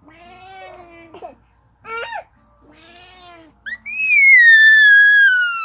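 Baby's voice: a few short babbling sounds, then about four seconds in a loud, long, high-pitched squeal that slowly falls in pitch.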